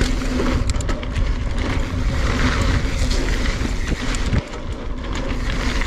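NS Bikes Synonym mountain bike descending rough rocky singletrack at speed: wind buffeting the camera microphone, tyres rumbling over dirt and rock, and the bike rattling with sharp clicks from impacts.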